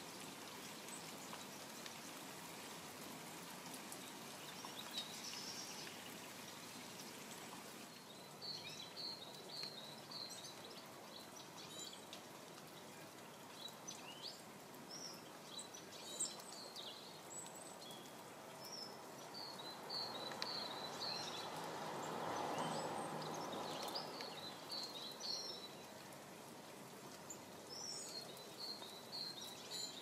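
Steady rain falling, with small garden birds chirping in quick runs of short high notes from about a quarter of the way in. A broad rushing swell of noise rises and fades about two-thirds of the way through.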